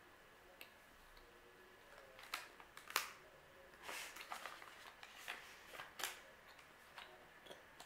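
Faint plastic snack pouch crinkling and clicking as it is handled: scattered short crackles, the sharpest about three seconds in and a cluster of smaller ones over the next few seconds.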